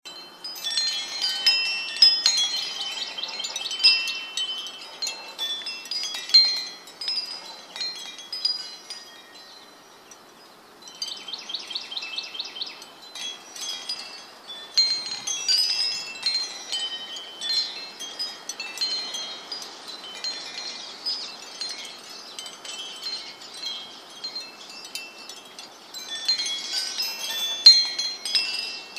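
Wind chimes ringing in the wind: clusters of high, bright notes that come and go with the gusts, easing off into a lull about a third of the way in before picking up again.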